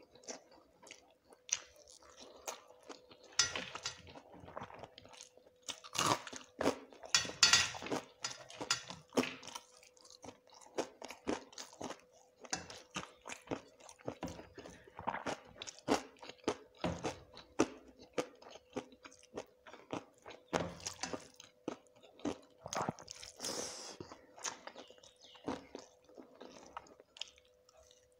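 Close-miked chewing and crunching of a rice meal with crisp fried sides such as dry fish, eaten by hand: irregular sharp crunches and mouth clicks, loudest a few seconds in. A faint steady hum underneath.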